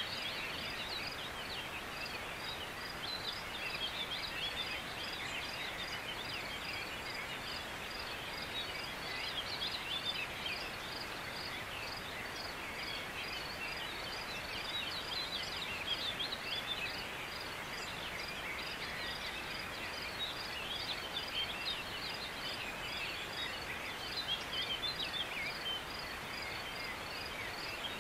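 Open-air ambience of small birds chirping continuously, with a high, evenly repeated pip about twice a second over a faint steady hiss.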